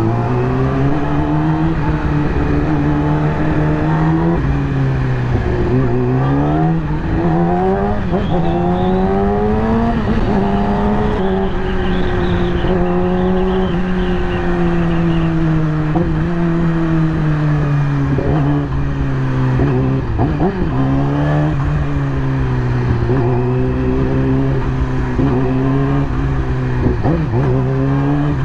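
2020 Yamaha YZF-R6's 599 cc inline-four engine running in slow traffic, its revs rising and falling several times with the throttle, holding fairly steady for a while in the middle, and dipping briefly a few times near the end.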